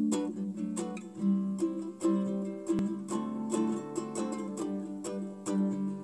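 Seizi guitalele being played: plucked chords in a steady rhythm, several notes a second.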